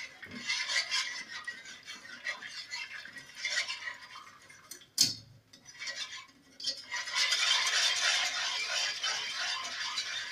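Wire whisk stirring milk into a flour-and-oil white sauce base in a nonstick pot, rattling and scraping against the pan. A sharp clink comes about five seconds in, and from about seven seconds the whisking is faster and steadier.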